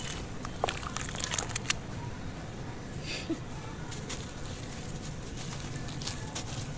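A soaked clay lump crumbled by hand in a basin of water: sharp, gritty crackles and splashes, thickest in the first two seconds, then quieter swishing water with a few more crackles near the end.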